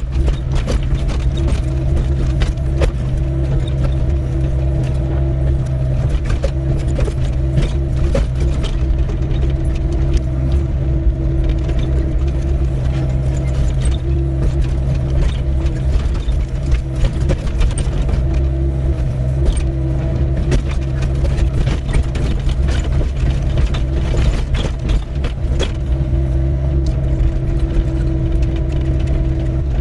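Doosan 55W wheeled mini excavator running steadily, its diesel engine droning with a steady whine above it, and frequent clicks and knocks from the machine working stony ground.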